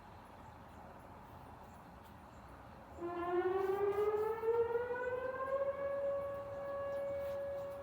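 Outdoor warning siren sounding in a test. It is faint for the first few seconds; about three seconds in it winds up loudly, rising in pitch for about three seconds, then holds one steady wail that eases off slightly near the end.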